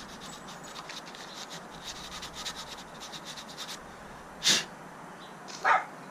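Rolled-up sandpaper scratching round the inside of a Jeep Wrangler JK door hinge in quick, rapid strokes, scouring out corrosion. The scratching stops a little past halfway, and two brief, louder rushes of noise follow about a second apart.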